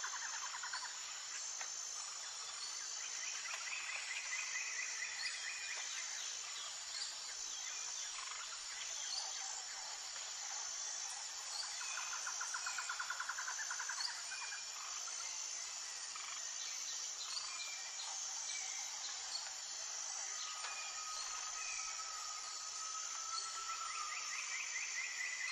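Outdoor ambience of insects and birds chirping: a steady high insect buzz that pulses regularly, with fast trills that come and go every few seconds.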